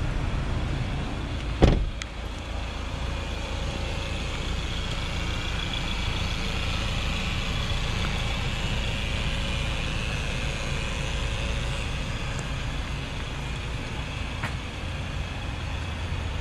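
A van door slams shut with a single heavy thump about two seconds in, over a steady low rumble.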